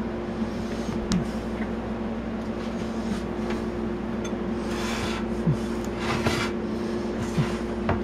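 A steady low hum with a second, higher tone. Over it come a few light taps and a brief rustle about five to six seconds in as a glass dish is handled on a countertop.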